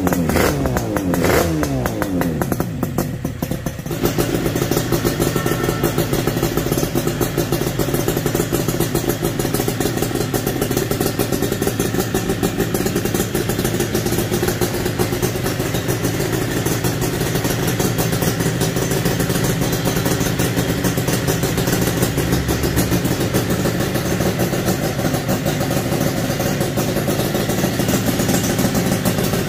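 Homemade two-cylinder two-stroke motorcycle engine, converted from a single cylinder, running through twin exhausts. Its revs fall away in the first few seconds, then it runs steadily at a constant speed.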